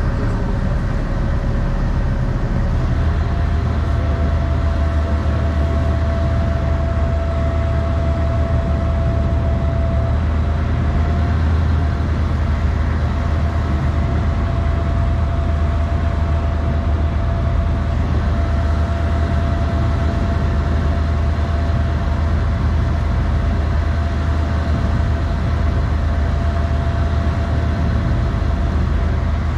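A boat's motor running steadily under way: a constant low drone with a steady whine above it, which steps up slightly in pitch about three seconds in.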